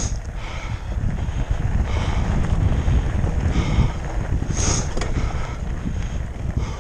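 Wind buffeting a GoPro microphone: a steady, loud rumble.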